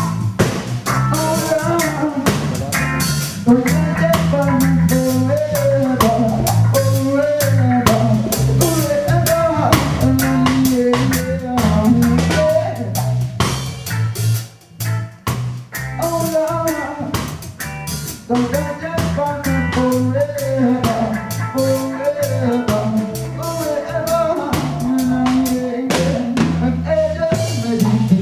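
Live reggae band playing: a drum kit and bass guitar carry the beat under an electric guitar, with a brief drop-out about halfway through.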